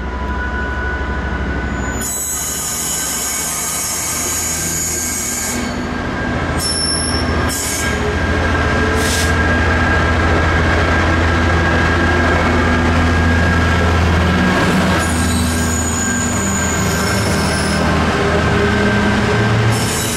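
Freight train passing behind a Class 66 diesel locomotive: a loud, steady low engine drone that swells through the middle, with several bouts of high-pitched wheel squeal from the wagons, each a second or a few seconds long.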